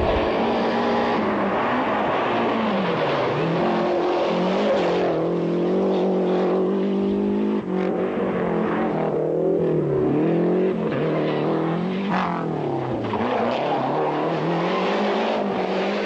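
Rally car engine at full throttle on a special stage, its pitch climbing and dropping again and again with gear changes and lifts.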